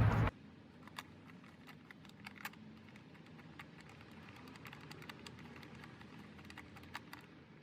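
Faint, irregular light clicks and taps of small metal parts being handled: the 10 mm bolts that hold the ignition coils being picked up and set in place by hand.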